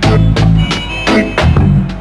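Live reggae band playing without singing: bass, drum kit, guitar and keyboards in a steady beat.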